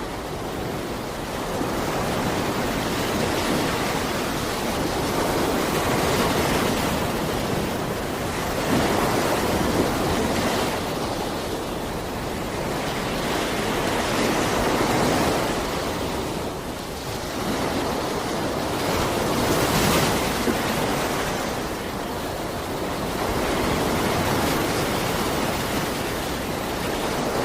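Caspian Sea surf washing onto the shore: a continuous rush of waves that swells and ebbs every few seconds.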